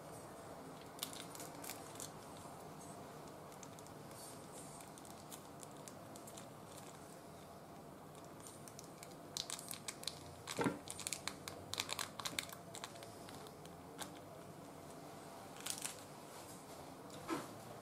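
Small foil sachets being torn open and crinkled in the hands: scattered sharp crackles and rustles, bunched together in the middle and coming twice more near the end.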